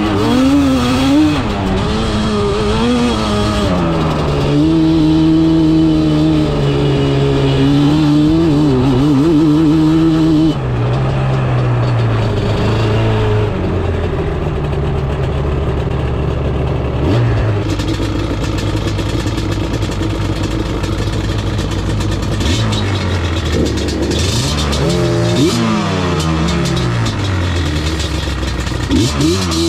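Yamaha Banshee's 350 cc two-stroke twin engine under way, its revs rising and falling through the first ten seconds. It then runs steadier at lower revs before a few quick rises and falls near the end.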